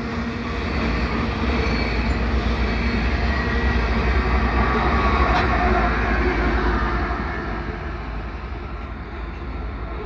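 Loaded freight train of potash hopper cars rolling past, ending with the rear distributed-power pusher, a CN GE ES44AC diesel locomotive, going by close. There is a steady rumble of wheels on rail and engine that is loudest about halfway through, then fades as the train pulls away.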